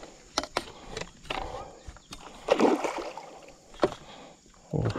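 A hooked giant snakehead thrashing and splashing at the surface beside a kayak as it is brought to the landing net, with scattered sharp knocks. The loudest splash comes about halfway through.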